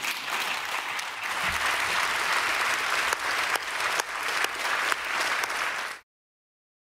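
Audience applauding: a dense, steady patter of many hands clapping that cuts off suddenly about six seconds in.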